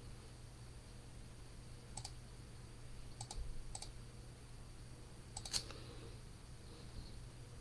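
Several sharp, separate clicks from operating a computer, single and paired, over a steady low hum.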